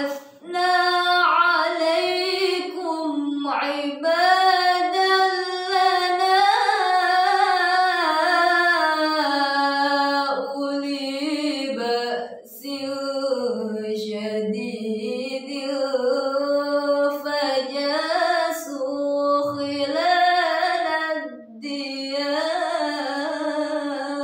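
A woman's solo voice reciting the Quran in melodic tilawah style: long held notes with ornamented turns, broken by short pauses about halfway through and near the end.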